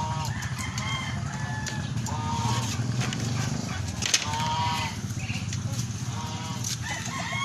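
Chickens clucking: a run of short pitched calls over a steady low hum, with a sharp click about four seconds in.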